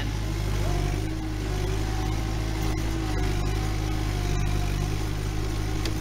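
Kubota 7040 tractor's diesel engine running steadily under load while pulling a three-furrow plough through the soil.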